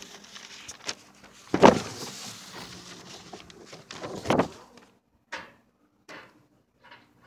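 Sheets of drawing paper rustling and the phone being handled, with two louder knocks about one and a half and four seconds in, then a few short rustles.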